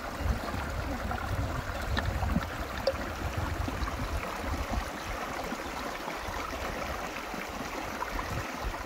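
Small mountain creek running over rocks, a steady rush of water with a low rumble that comes and goes.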